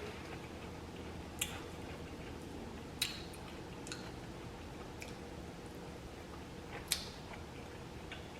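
Mouth sounds of someone chewing chicken: a few short, wet smacks and clicks, spaced a second or more apart.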